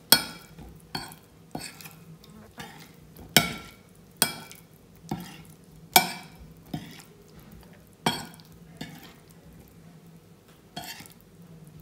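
Metal spoon stirring tofu cubes on a ceramic plate: irregular clinks and scrapes of the spoon against the plate, about one a second.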